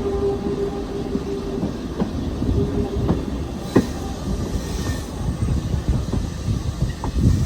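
A train rolling slowly along the track. A steady high tone holds for the first second and a half, then a low rumble carries on with irregular clanks and knocks from the running gear and wagons.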